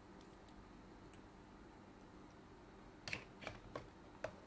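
Faint steady hum, then four or five small sharp clicks and taps from about three seconds in, as small hand tools and parts are handled during soldering work on a game controller's board.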